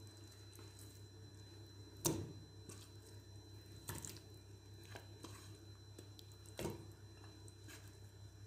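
Raw chicken pieces set by hand one at a time into oil in an aluminium karahi: about five soft, wet plops, the loudest about two seconds in, over a faint steady low hum.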